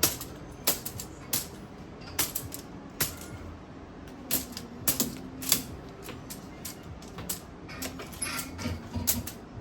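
Irregular sharp clicks and taps, several a second at times, of cats playing with a toy.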